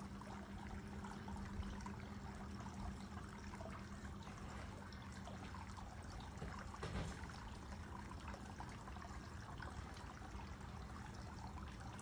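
Faint, steady trickle of running water, with a low steady hum through the first half.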